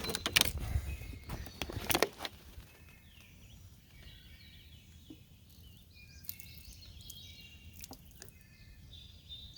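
A few knocks and handling thumps over the first two seconds, then quiet outdoor ambience with birds chirping.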